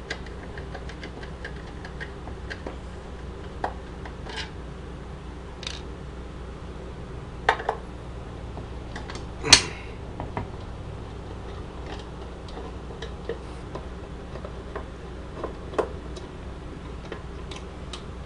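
Scattered clicks and knocks of a Bell & Howell Super 8 projector's metal and plastic case, screws and screwdriver being handled during disassembly, with one louder knock about halfway through.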